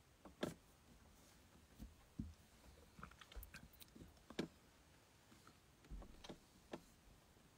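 Near silence, broken by a few faint, scattered clicks and taps.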